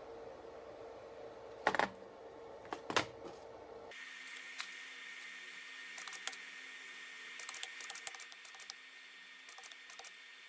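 Small clicks and taps of cylindrical lithium-ion cells being handled and pressed together for a battery pack, with two louder sharp clicks about two and three seconds in and scattered lighter clicks after, over a faint steady hum.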